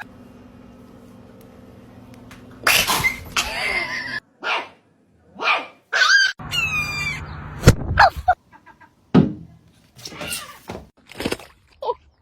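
A dog making several short, separate vocal bursts with gaps between them, and a sharp knock partway through.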